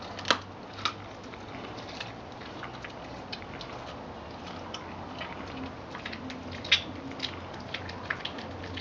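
Collie chewing raw rabbit and crunching the bones with its back teeth: sharp cracks come just after the start, just under a second in, and twice around seven seconds in, with smaller clicks of chewing in between.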